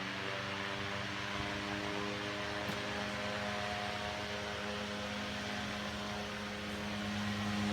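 1902 General Electric 'Pancake' desk fan running: a steady hum from its early AC motor over the rush of air from the blades, growing slightly louder near the end.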